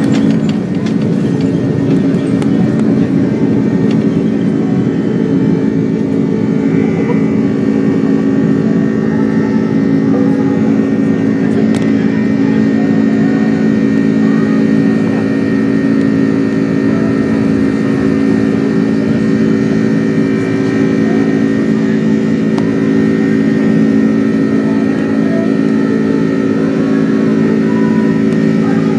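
Buzzsaw tones from an Airbus A330-300's Rolls-Royce Trent 700 turbofans at takeoff thrust, heard from inside the cabin: a steady stack of droning tones over the rush of engine and air noise, running through the last of the takeoff roll and into the climb. The buzzsaw is the sign of the fan blade tips turning faster than sound at full takeoff power.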